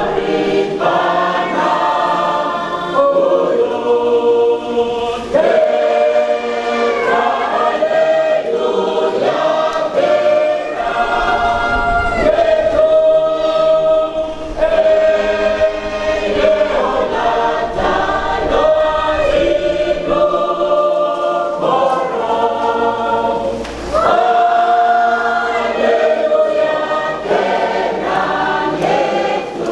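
A large mixed choir singing a gospel hymn unaccompanied, several voice parts holding long notes in harmony.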